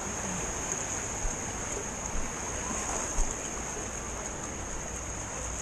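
Water rushing down a water slide, a steady wash with a constant high hiss over it and a few light knocks about one, two and three seconds in.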